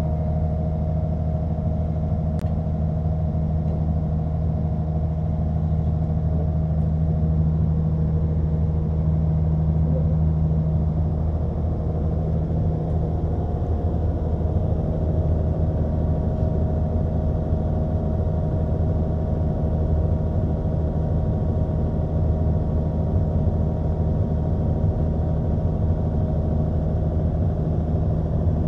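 A heavy-machinery diesel engine idling steadily at an even low speed, its note shifting slightly about eleven seconds in.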